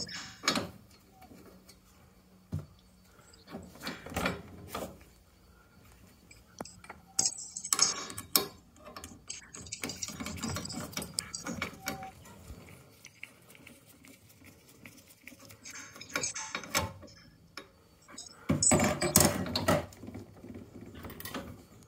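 Irregular bursts of metal clinks, taps and scraping from a long screwdriver and gloved hand working at the screws and fittings under a combi boiler's gas valve to free it. The loudest clatter is at the start and again near the end.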